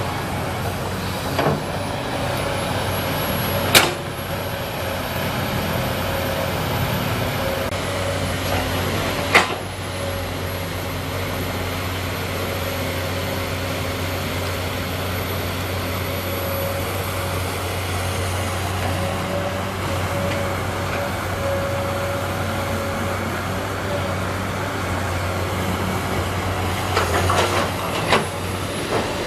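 Komatsu PC200 excavator diesel engine running steadily at work, with a steady whine over the drone. Two sharp knocks come a few seconds apart in the first ten seconds, and a few smaller knocks come near the end.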